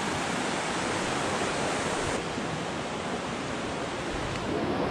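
Mountain stream rushing over rocks: a steady wash of water noise.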